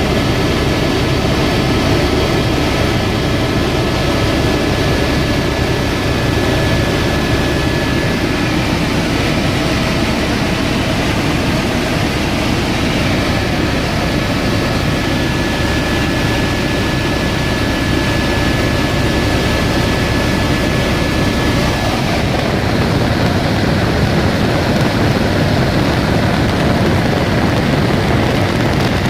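Helicopter in flight: steady, loud engine and rotor noise, with a faint high whine that drops out about two-thirds of the way through.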